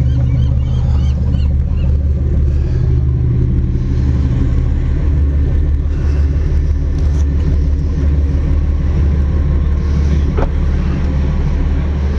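Twin Cummins QSC 8.3 six-cylinder marine diesels running steadily with an even low rumble.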